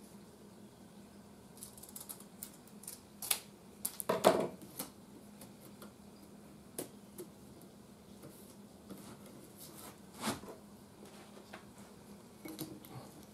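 Scattered light clicks, rustles and knocks from hand work with wood veneer, the loudest burst about four seconds in and another about ten seconds in, over a faint steady hum.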